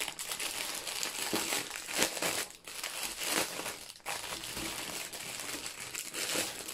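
Clear plastic packaging crinkling and rustling as hands unwrap and handle a bundle of small bags of diamond painting drills, an irregular crackle that is loudest about two seconds in.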